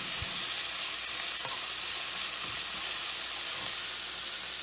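Ground bison sizzling steadily as it browns in olive oil in a non-stick frying pan, stirred with chopsticks.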